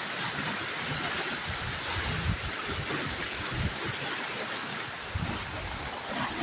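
Steady rush of water flowing out from under the ground, with irregular low rumbles underneath.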